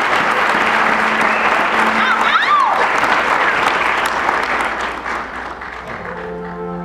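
Audience applauding, with a single shout from the crowd partway through. The applause dies down near the end as music with held chords begins.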